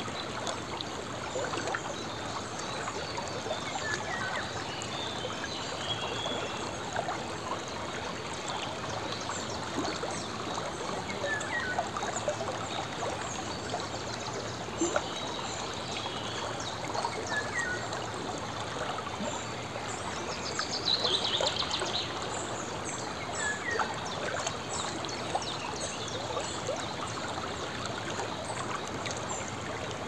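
Shallow river flowing steadily over a stony bed, a constant babble of water. Short bird chirps come every few seconds, with a brief trill about two-thirds of the way through.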